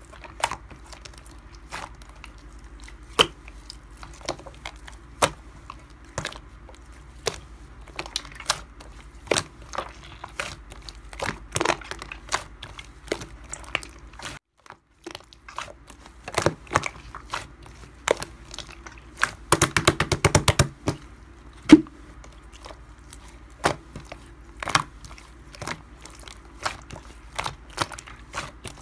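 Slime being squeezed and poked by hand, giving irregular sharp pops and crackles, with a quick run of crackles about twenty seconds in. A low steady hum sits underneath.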